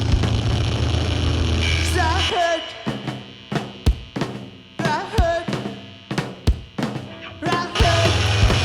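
Live rock band playing loud, with heavy bass and drums. About two seconds in, the full band drops out, leaving separate drum hits under a high wavering melody line. The full band crashes back in near the end.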